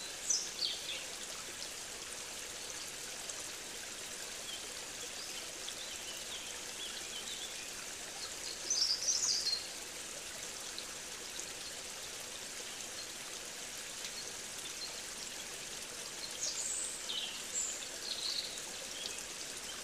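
Steady rush of running water, with birds calling over it: a few calls right at the start, a short burst of song about nine seconds in, and several more calls near the end.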